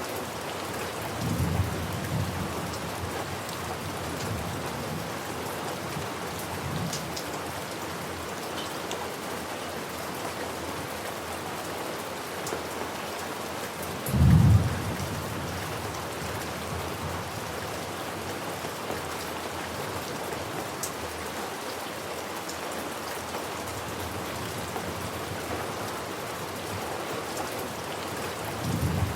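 Steady heavy rain with low rolls of thunder: a short rumble near the start, a faint one a few seconds later, the loudest about halfway through, and another starting at the end.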